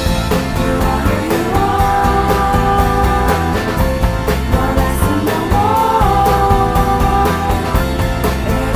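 Background rock music with a steady beat and long held melody notes.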